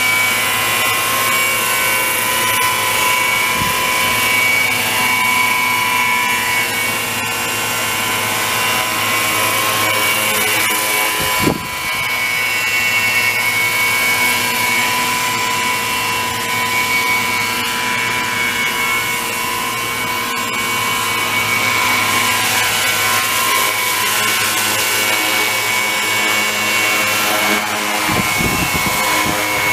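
Radio-controlled scale EC135 model helicopter (Vario kit) flying low over grass, its motor and rotors giving a steady high whine with a whirring rotor wash.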